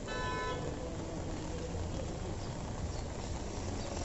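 Steady rain falling on a wet street, an even hiss and patter, with a brief high-pitched tone in the first second.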